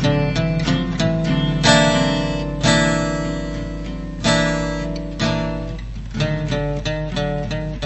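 Guitar playing: a quick run of plucked notes, then four strummed chords left to ring about a second apart, then quick plucked notes again.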